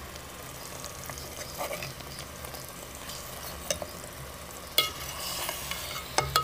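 Fish pieces frying in masala in a metal pot, sizzling steadily as they are stirred in the last stage of cooking a fish qorma. A few sharp clicks against the pot come near the end.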